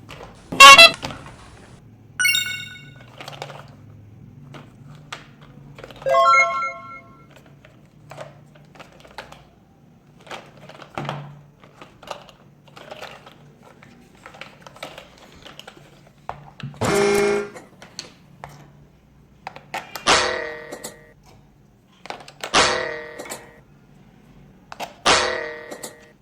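Short electronic toy sound effects, pitched beeps and chimes that each ring out briefly, come about eight times, with small plastic clicks and knocks from toys being handled between them over a faint steady hum.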